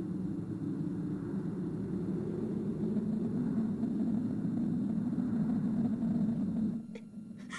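Low, steady rumbling sound effect for dark smoke rolling over palace roofs. It swells a little, then cuts off near the end and is followed by two short, sharp sounds.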